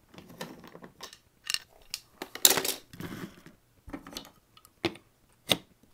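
Irregular clicks and knocks of wooden toy trains and track being handled and clattering against each other, the loudest knock about halfway through.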